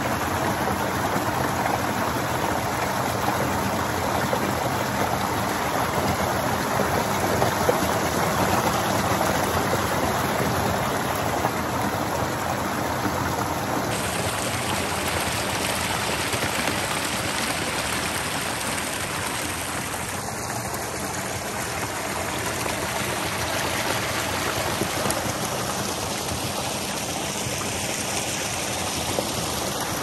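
Clear water from a high-volume spring pouring over a small ledge into a creek: a steady splashing rush of falling water.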